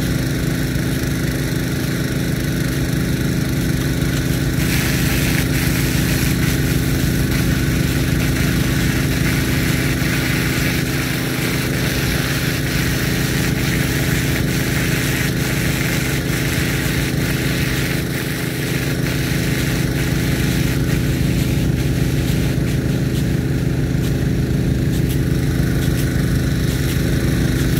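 Steady hum of the pumps feeding a Nelson P150 big gun sprinkler, under the hiss of its water jet from a .87-inch ring nozzle. The hiss grows brighter for a stretch in the middle, then eases.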